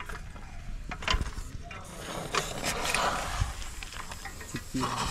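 Scattered clicks and knocks of hand work on a motorcycle, with voices in the background.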